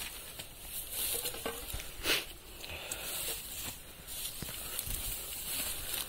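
Faint footsteps and rustling on rock and dry brush as people climb a steep hillside, with one louder rustle about two seconds in.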